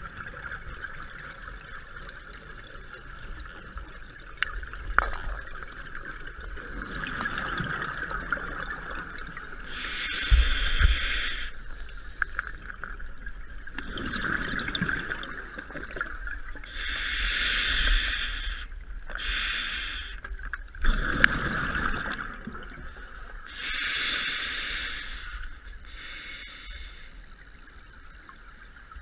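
Scuba diver breathing through a regulator, heard underwater: a hissing inhale followed by a low gurgle of exhaled bubbles, repeating every six or seven seconds over a steady hum, with a couple of sharp clicks.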